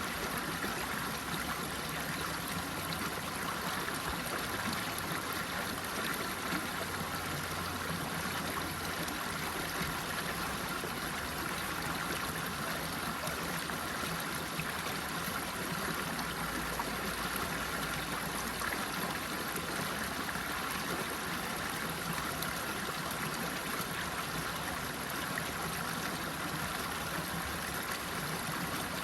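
Running water flowing steadily, an even rushing and trickling with no breaks.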